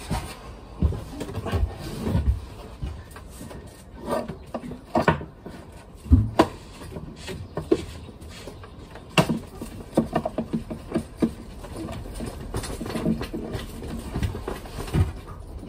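Scattered, irregular clicks and knocks with a few low thuds, the sharpest about six and nine seconds in: objects being handled and moved about.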